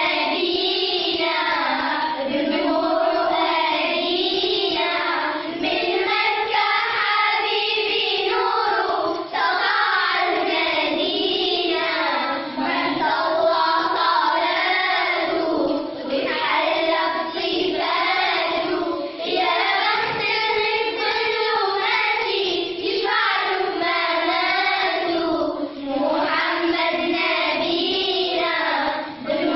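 A group of schoolchildren singing a nasheed together, with short breaks between phrases.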